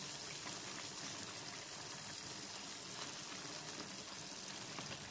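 Chicken adobo simmering in its sauce in an aluminium pan: a steady, watery bubbling hiss, while the chicken pieces are turned over with a wooden spatula.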